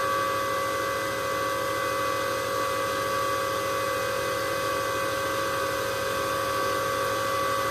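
Antminer S9j Bitcoin mining rig's front and rear cooling fans running at full speed: a loud, steady rush of air with a constant whine on top. The fans are still at their start-up speed and have not yet slowed down.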